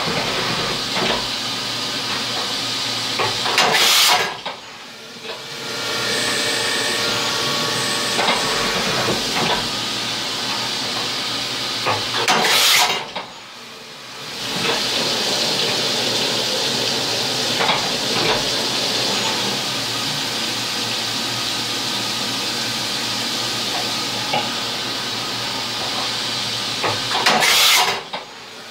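CNC vertical mill cutting at a slow feed with flood coolant hissing onto the end mill, a steady spray-and-machining noise. Three times the sound swells briefly and then drops away sharply into a short lull: about four seconds in, about thirteen seconds in, and at the very end.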